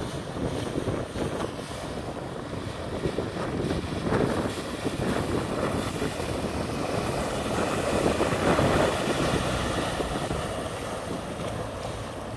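Outboard-powered aluminium workboat passing at speed, motor and hull wash growing louder as it comes by about two-thirds of the way through, then easing off, with wind buffeting the microphone.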